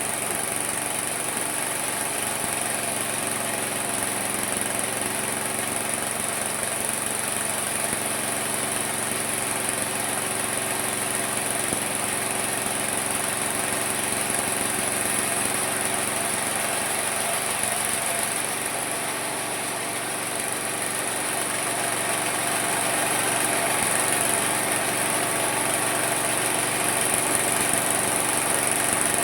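Homemade mini sawmill running steadily, with a motor hum and a high whine from the spinning saw blade. It dips briefly about two-thirds of the way in, then grows a little louder.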